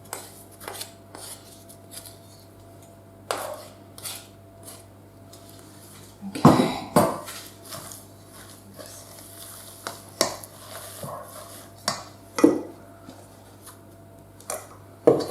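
A ladle clinking and scraping against a mixing bowl in irregular knocks as beaten egg whites are folded into cake batter.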